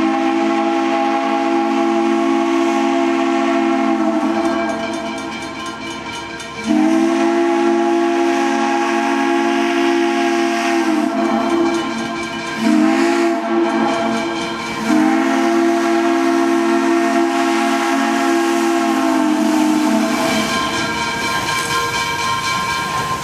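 Steam locomotive No. 58 (an 0-6-0) blowing its whistle in four blasts, long, long, short, long: the grade-crossing signal as it approaches a road crossing. After the last blast, steam hiss and the sound of the approaching engine remain.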